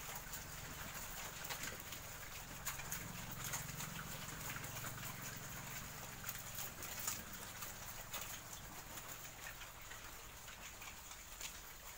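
Pigs feeding on greens: a faint, low, wavering grunting through the first half, with soft clicks and rustles of chewing and trampled leaves.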